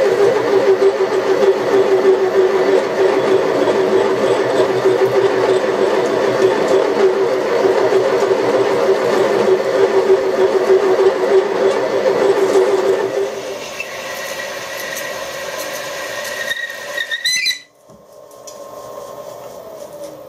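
Large taper-shank twist drill cutting through a metal block in a milling machine, a loud drone with a chattering edge as it takes the final-size hole. About thirteen seconds in it drops to a quieter run with a thin high whine, and after a sudden break near the end only a much quieter machine sound is left.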